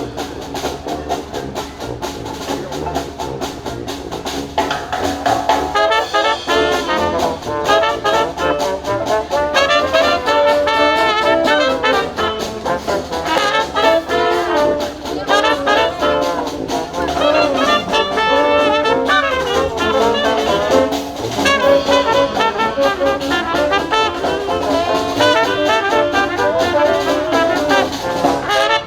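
Live New Orleans-style jazz band playing, with trumpet and trombone leading; the music fills out and grows louder about five seconds in.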